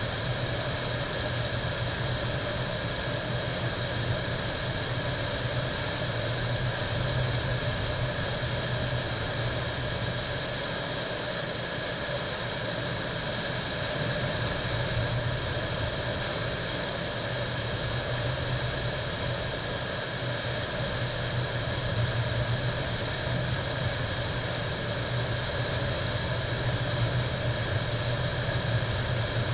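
Whitewater of a river standing wave rushing steadily, with a strong low rumble underneath.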